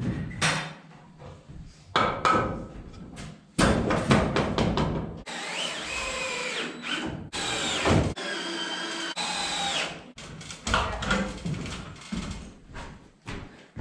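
Power drill running in several bursts, its pitch rising and falling as it is triggered, with knocks and thumps of wood being handled before and after.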